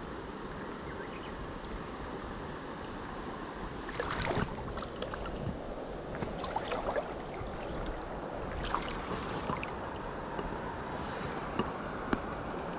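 Mountain stream water flowing steadily, with a few splashes of water starting about four seconds in, and two sharp clicks near the end.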